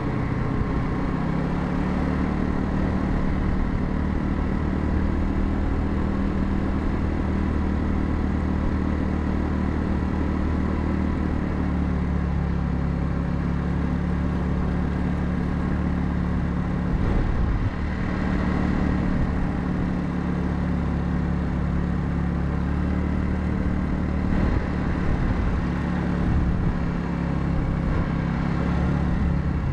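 Royal Alloy GT150 scooter's single-cylinder engine running steadily under way. Its note shifts in pitch a few times, about a second in, around twelve seconds in and near the end.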